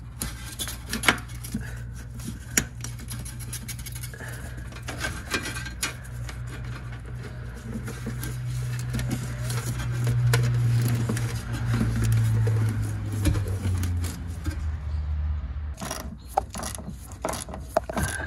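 Hands handling plastic fuel-line quick connectors and hoses on a fuel tank's pump module: repeated clicks, rubs and scrapes. Under them a low hum swells in the middle, then steps down and stops a couple of seconds before the end.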